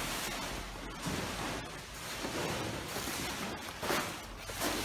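A large fabric sheet being dragged across greenhouse beds: a steady rushing hiss with a few louder swishes, the strongest about four seconds in.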